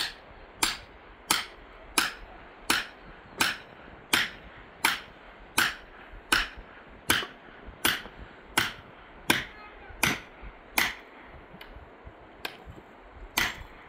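A steady run of hard blows, one about every three quarters of a second, like something being struck repeatedly with a tool. The strokes stop about eleven seconds in, then one faint and one loud blow follow near the end.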